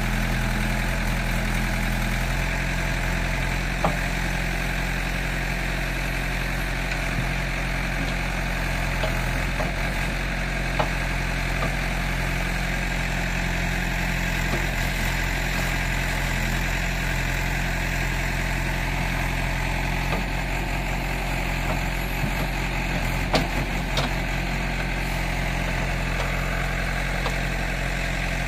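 JCB 3DX backhoe loader's diesel engine running steadily at an even pitch while the backhoe arm works, with a few short knocks.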